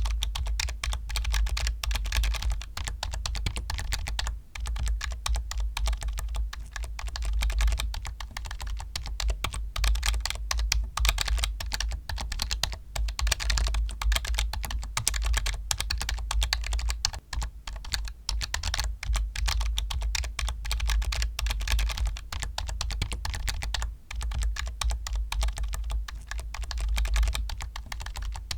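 Computer keyboard being typed on continuously, a rapid stream of key clicks with a few brief pauses.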